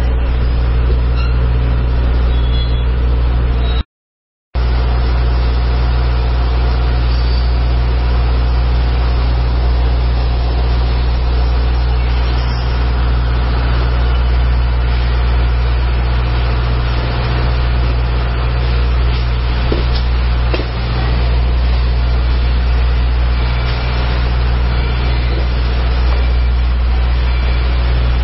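Steam train running, heard from aboard a carriage: a steady low rumble with a rushing noise over it, cutting out completely for a moment about four seconds in.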